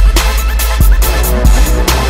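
Electronic music track with heavy sustained bass and a steady drum beat.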